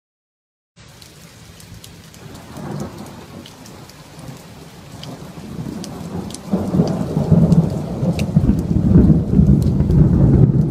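Thunder following a lightning strike: a low rumble that swells briefly, then grows into a heavy, rolling rumble about six and a half seconds in. Steady rain runs under it, with sharp ticks of drops landing close by.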